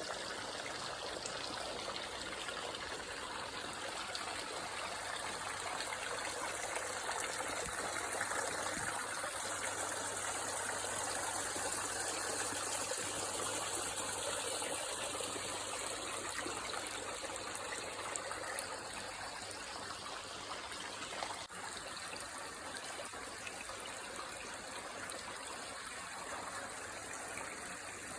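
Water trickling steadily over rocks in a small garden stream and waterfall, a little louder in the middle and softer toward the end.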